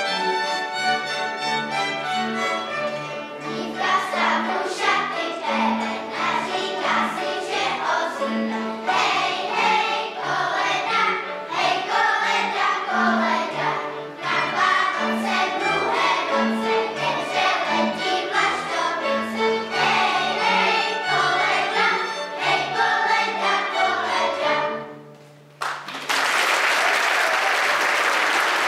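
Folk choir singing a Moravian carol with fiddle and string accompaniment; a short fiddle passage comes first and the voices join after about three seconds. The song ends about 25 seconds in, and an audience applauds.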